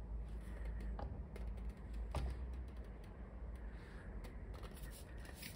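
Handling noise from a large wooden picture frame being held and tilted by hand: scattered light clicks and taps over a low rumble.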